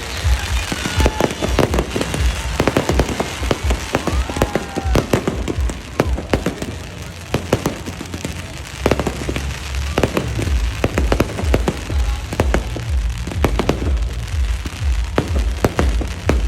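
Fireworks display going off: a dense run of sharp bangs and crackles, with deeper booming from about nine seconds in.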